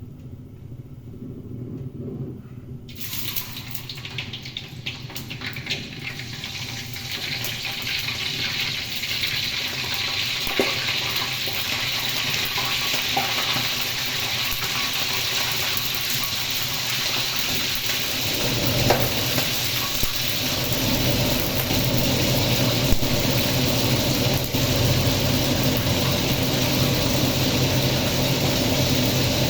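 Shrimp frying in hot oil: a dense sizzling hiss that starts suddenly about three seconds in and slowly grows louder, with scattered crackles.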